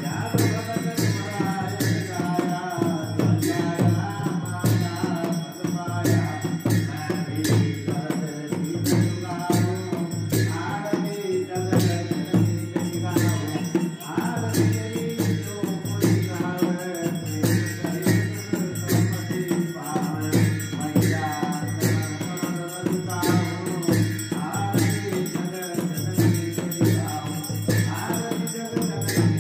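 Hindu aarti being sung to a steady drum beat, with a hand bell ringing along throughout.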